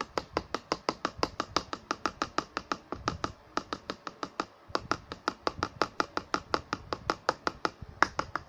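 Fast, even clicking, about six clicks a second with one short pause partway through: a stirring utensil knocking against the sides of a container as glue and paint are mixed for slime.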